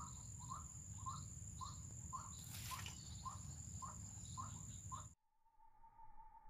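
White-breasted waterhen calls: short notes repeated nearly twice a second, over a steady high insect drone, with a brief rustle about halfway through. Just after five seconds in, everything cuts off abruptly to a faint steady tone.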